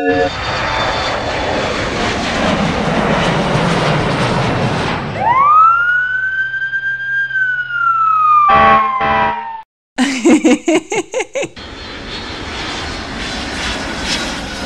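Sound effects of a jet airliner's engines rushing, then a single siren wail that rises fast and slowly falls. A few short horn blasts and a quick run of tooting pulses follow, and the jet rush returns near the end.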